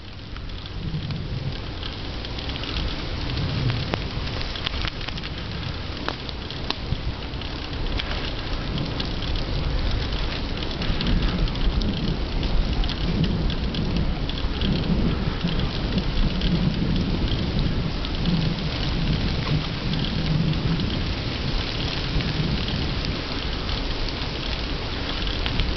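Rain pattering and crackling, with wind rumbling on the microphone and tyres hissing on wet asphalt as the bicycle rolls along.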